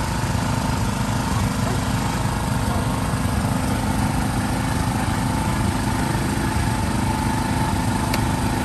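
A small engine running steadily with an even low drone.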